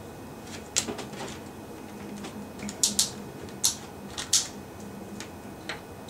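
About six sharp clicks and light taps, scattered and irregular, from small plastic and metal parts being handled on a tabletop: multimeter probe tips being set onto a resistor's leads in an opened refrigerator timer.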